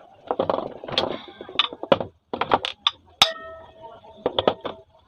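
Sharp metallic knocks and clatter from a ceiling fan's stator and body being worked loose. One strike about three seconds in leaves a brief ringing tone.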